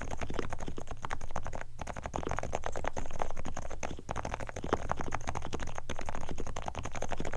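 Fast typing on a Realforce R4 keyboard whose Topre switches are fully lubricated: a dense, continuous run of keystrokes broken by a few brief pauses, over a steady low hum.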